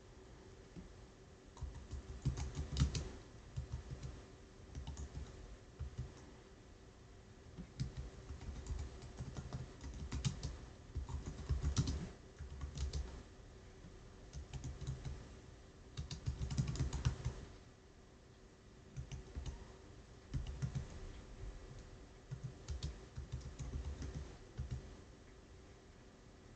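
Computer keyboard typing in several short bursts of keystrokes, with pauses between the bursts.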